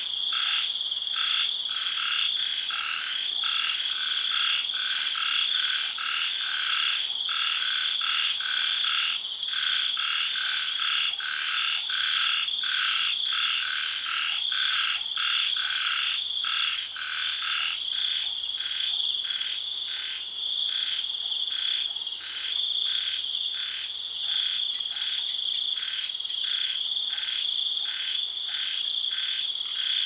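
Night chorus of frogs calling in a rapid, repeated rhythm, nearly two calls a second, over a steady high-pitched drone of cicadas and other insects.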